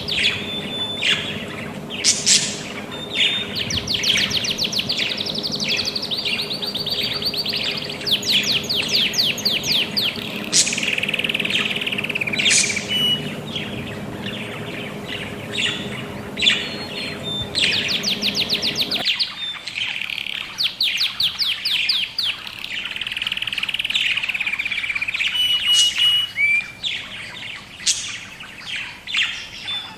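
Budgerigars chirping and chattering in fast, rapid trills and short chirps, with one phrase after another. A low steady hum runs underneath for the first two-thirds and stops suddenly.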